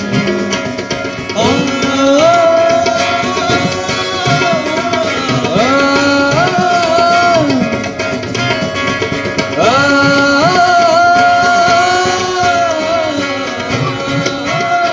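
Live band music: a long, sliding melody of held notes in phrases of a few seconds over tabla drumming.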